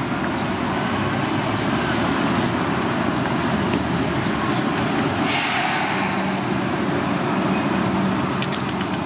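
Steady city street traffic with a heavy vehicle's low engine rumble, and a short hiss about five seconds in. A run of light ticks comes near the end.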